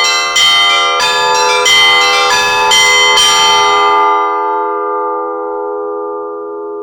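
Russian Orthodox church bells rung in a quick zvon, several bells struck in fast succession. The strokes stop about four seconds in, and the bells then hum on, slowly fading.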